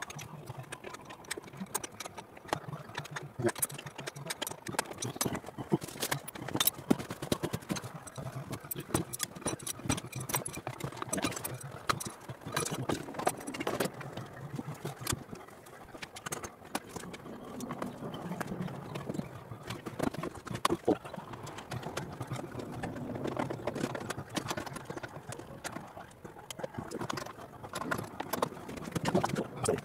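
Hand tools clicking and clinking against the MGB engine's cylinder head during spanner work to take the head off: many short, sharp metal clicks and knocks at an irregular pace.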